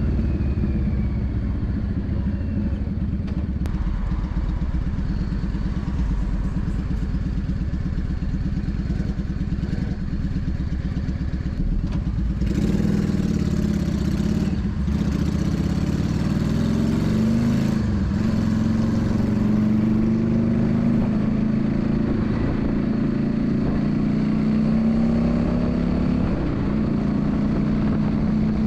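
Yamaha Drag Star 400's V-twin engine running under way, its note fairly steady at first and then rising and dropping several times in the second half. From about twelve seconds in, a loud rushing hiss joins for about five seconds.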